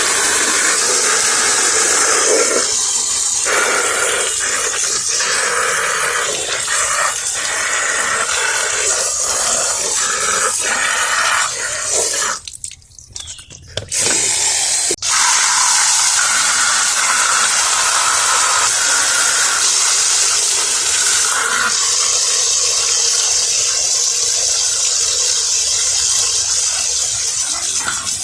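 Garden hose spraying water onto a box fan's blade, rinsing it off. The spray cuts out briefly about 12 seconds in, then starts again.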